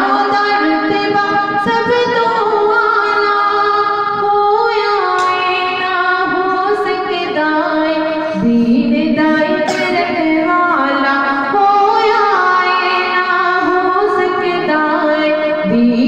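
Devotional qasida singing: a solo voice in long, ornamented melodic phrases.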